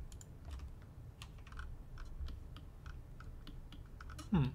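Irregular clicks and taps of a computer keyboard and mouse. Near the end there is a short low vocal sound with falling pitch, the loudest moment.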